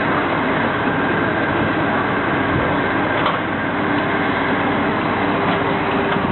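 Loud, steady machine noise, with a single light click about three seconds in.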